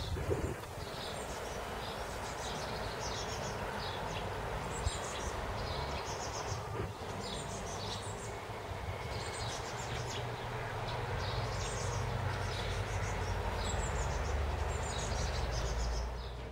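Eurasian tree sparrows chirping over and over in short high calls, about one every second or less, over a low rumble that grows louder in the second half.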